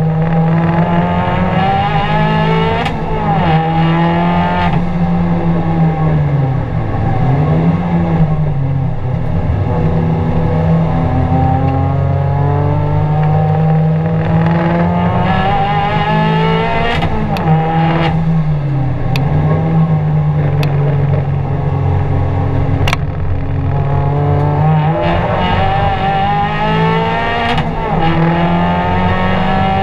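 Abarth 500's turbocharged four-cylinder engine, heard from inside the cabin, pulling hard at high revs around a race circuit. Its pitch drops and climbs back several times as the car brakes for corners and accelerates out. A few sharp clicks come in the second half.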